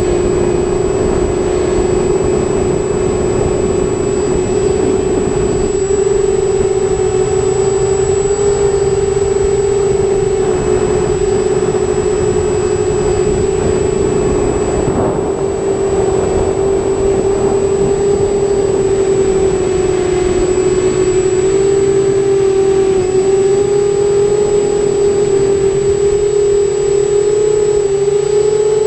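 Quadcopter's electric motors and propellers in flight, picked up by its onboard GoPro: a loud, steady hum whose pitch shifts slightly up and down as the throttle changes.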